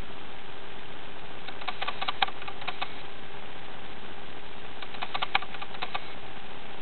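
Meerkats giving two short bursts of rapid clicking calls, each about a second long, about three seconds apart, during a group war dance. A steady hiss lies under the calls.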